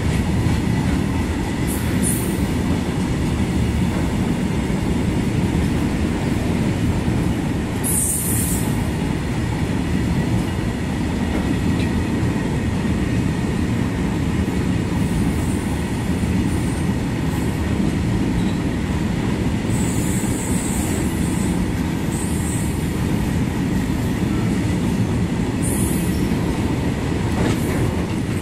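A freight train's rake of BTPN petroleum tank wagons rolling steadily past at close range, with a continuous low rumble of wheels on rail. Brief high-pitched wheel squeals come in every few seconds, about six times.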